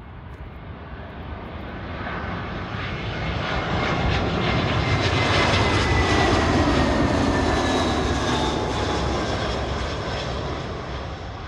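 British Airways Airbus A320-family twin-jet passing low overhead on final approach, its engines at approach power. The roar builds to a peak about halfway through, then fades, with a faint whine that slides down in pitch as it goes by.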